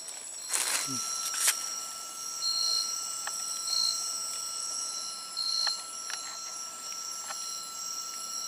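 Night insects in tropical forest keep up a steady chorus of high-pitched tones, joined about a second in by a lower steady tone. Footsteps rustle through the undergrowth in the first second or so, and a few light clicks follow.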